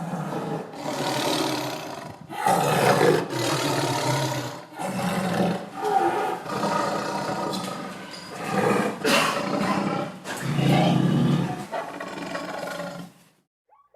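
A big cat calling in a series of about nine loud, rough roars, each about a second long with short breaks between them. The series stops shortly before the end.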